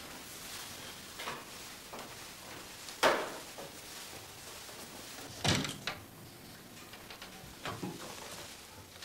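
Scattered knocks and clunks of a person moving about a dark house, a door being handled. The loudest knock comes about three seconds in, two more follow around five and a half to six seconds, and softer ones near the end.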